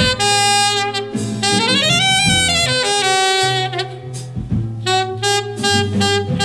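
Instrumental break in a jazz ballad: a lead melody over a steady bass line, with a quick run up and back down about two seconds in.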